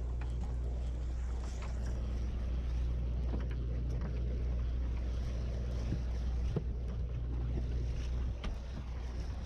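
Steady low drone of a sportfishing boat's machinery, with scattered light clicks and knocks on deck.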